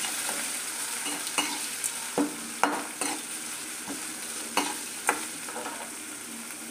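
Sliced onions frying in oil in a metal kadai, a steady sizzle, while a metal spoon stirs them, scraping and knocking against the pan several times.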